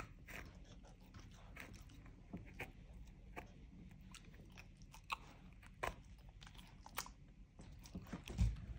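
Keeshond chewing and gnawing on a pear's stalk: irregular small crunching clicks from its teeth, a few sharper ones in the second half, and a louder bump near the end.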